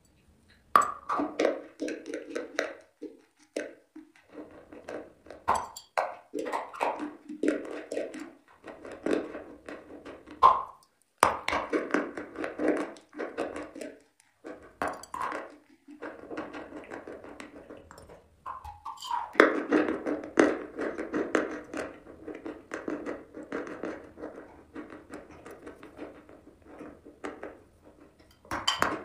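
Chalk being bitten and chewed: a dense run of dry, crisp crunches with short pauses between bites.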